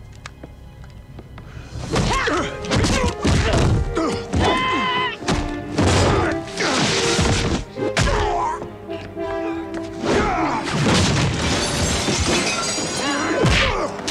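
Film fight sound effects: after about two seconds of quiet, a rapid string of heavy thuds, blows and crashes with breaking plaster and wood as a body is smashed through a wall, all over loud action music.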